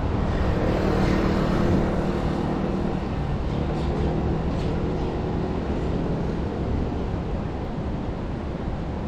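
Engine of a passing motor vehicle humming, fading out about six seconds in, over a steady outdoor rush of wind and surf.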